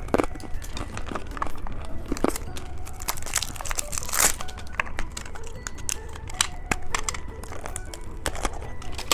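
Candy wrappers crinkling and tearing as they are handled and opened, with many small sharp clicks and a longer rustle a little after three seconds in.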